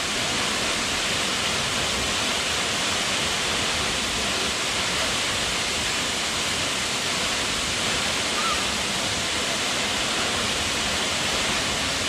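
Steady, unbroken rush of a waterfall pouring into its plunge pool.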